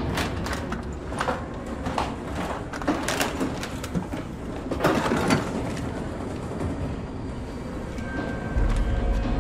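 Scattered sharp knocks and clatters for the first five seconds or so, then a low rumble comes in near the end.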